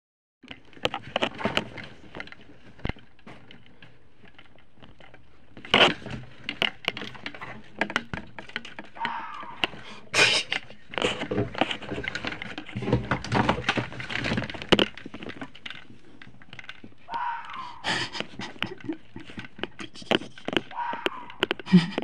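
A fox calling at night: a series of harsh, hoarse screams and barks, clearest about nine, seventeen and twenty seconds in, among many sharp clicks and knocks.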